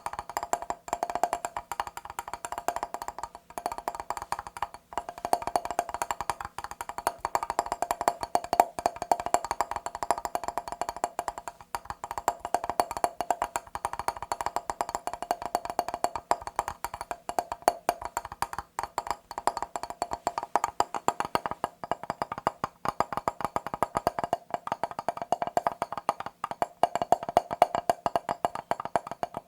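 Fast tapping on a mirror: a rapid, continuous run of small glassy taps with a light ring under them, broken by a few brief pauses.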